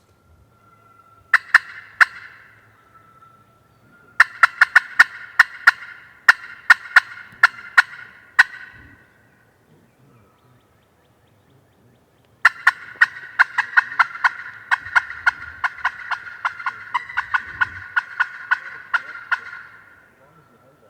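Turkey call run in loud, rapid strings of sharp cutts and yelps: two notes about a second in, a run of about four seconds, then a longer, denser run of about seven seconds in the second half. The calling is meant to locate gobblers and draw an answer.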